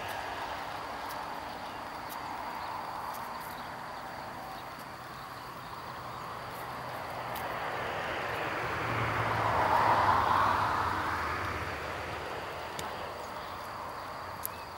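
A vehicle passing at a distance: a steady rushing sound that swells to its loudest about ten seconds in, with a low hum under it, then fades away.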